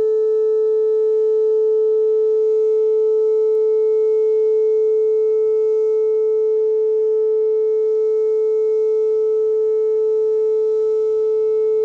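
Whelen WPS-2807 electronic outdoor warning siren sounding a loud steady tone, held at one pitch with many overtones.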